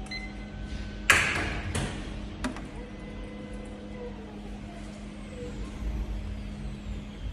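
Steady low hum from laboratory equipment. About a second in, a sudden loud rush of noise dies away over about a second, and a sharp knock follows a little later.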